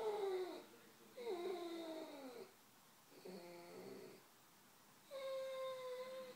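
Red and white setter whining in four long, drawn-out cries. The first two slide down in pitch, a lower, quieter one follows, and the last is held on one steady note. The dog is pining in distress because its owners have gone away.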